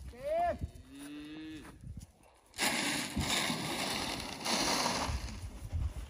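A cow moos twice, a short rising call and then a longer, lower one. About two and a half seconds in, a hand pump sprayer starts hissing as lice treatment is sprayed onto the cattle, in two long bursts that stop just before the end.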